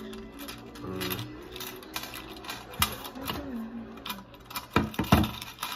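Irregular clicking and rattling of small plastic objects handled on a table, such as Play-Doh tubs and lids, with a few louder knocks about five seconds in.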